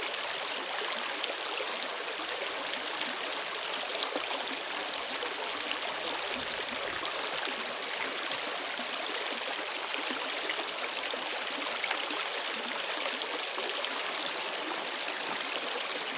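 Steady rushing of running water, like a stream, with no change in level.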